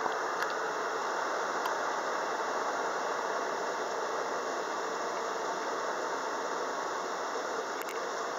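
Steady rushing noise of an automatic car wash heard from inside the car, with a few faint ticks.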